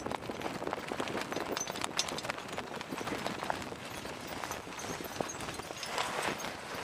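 Choppy water slapping and splashing against a boat's hull: a quick, irregular run of small knocks over a steady wash of water noise.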